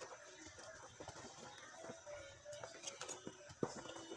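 Pork sinigang broth boiling in an aluminium pot: faint bubbling with scattered small pops.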